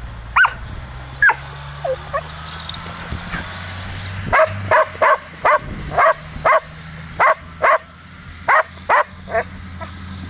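Dog barking: a few single barks, then from about four seconds in a fast run of short, sharp barks, two to three a second.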